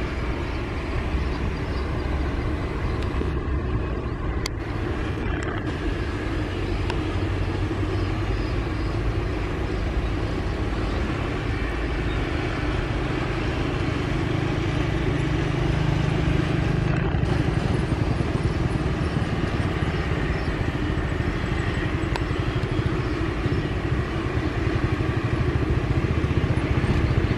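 Twin propeller engines of a high-wing military transport plane running steadily as it rolls away down the runway. The drone's pitch rises around the middle and it grows a little louder toward the end.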